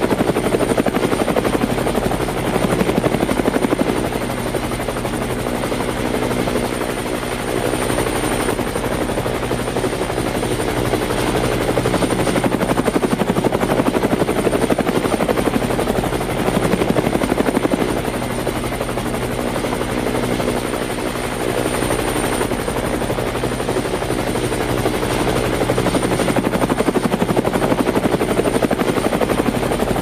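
Helicopter running steadily, its rotor blades chopping fast and evenly over a thin, steady high whine, the level easing and swelling a little every few seconds.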